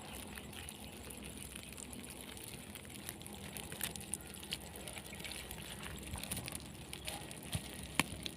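Faint trickling and dripping of water with scattered small clicks and taps as a fish trap is handled, one sharper click near the end.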